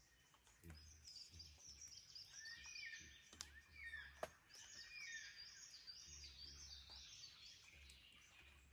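Faint dawn chorus of Australian forest birds: one bird repeats a short arched whistled note several times over a busy high twittering from smaller birds, with two sharp ticks near the middle.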